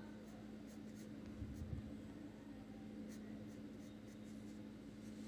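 Faint scratching of pencil strokes on drawing paper, over a steady low hum. There is a soft low bump about one and a half seconds in.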